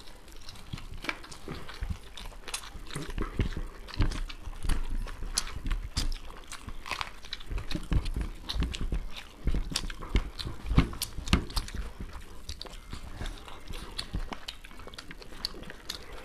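Two people chewing and biting mouthfuls of fried rice, chowmein and chicken Manchurian, eaten by hand and picked up close by a table microphone: a continuous run of irregular mouth clicks and chewing noises.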